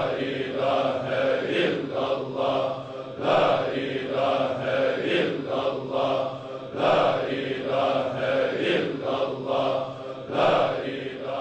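A voice chanting in drawn-out, repeated phrases, a devotional chant.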